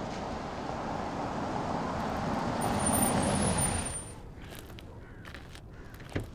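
A BMW SUV drives up on a snow-covered road, its engine and tyres growing louder as it approaches, then stops about four seconds in and the noise drops away. A few faint clicks follow, and there is a sharp click near the end.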